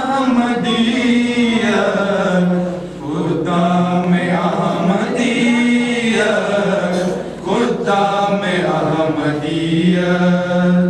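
A group of young men singing an Urdu nazm (tarana) together, unaccompanied, in long held chant-like phrases with short breaks between them.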